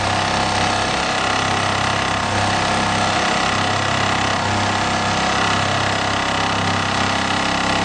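Richpeace CNC pattern sewing machine stitching: a steady, unbroken mechanical running of needle strokes and motor.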